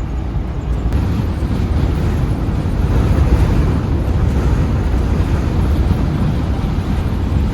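Steady low rumble of a Fleetwood Expedition motorhome driving at highway speed, heard from inside the cab: road, engine and wind noise blended together in a severe windstorm.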